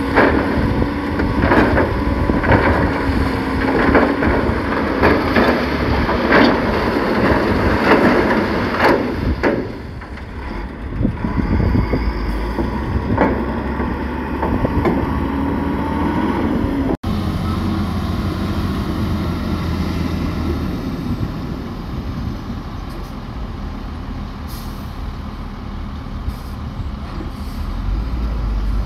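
Heavy diesel earthmoving machinery at work: engines running with repeated sharp clanks and knocks for the first nine seconds or so. After a sudden break about two-thirds of the way in, a steady engine sound continues.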